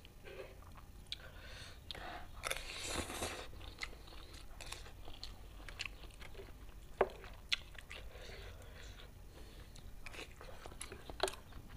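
Close-up eating of fried instant noodles with chili sambal: chewing and mouth noises, with a longer noisy stretch about two and a half seconds in. Sharp clinks of a spoon and fork against the metal tray come twice around seven seconds and again near the end.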